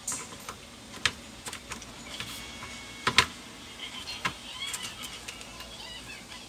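Scattered clicks and knocks of plastic and metal parts being handled as an induction cooker's copper coil plate is set back into its plastic housing, the loudest a sharp double knock about three seconds in.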